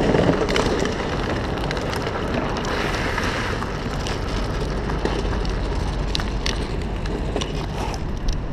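Wind buffeting the microphone and tyres rolling over rough ground while riding a bike, with scattered clicks and knocks and no engine note.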